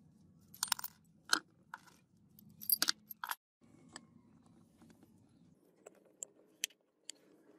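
Hard metal clinks from a steel two-jaw bearing puller and drill parts being handled: a cluster of sharp clinks and clanks in the first three seconds, then a few lighter ticks.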